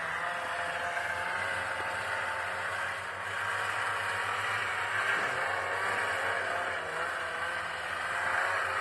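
Snowmobile engine running, its pitch rising and falling with the throttle, getting louder near the end.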